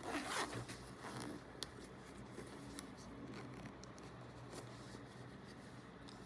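A bag zipper being worked by hand: a short rasp of the slider along its teeth, then quiet fabric handling with a few light clicks.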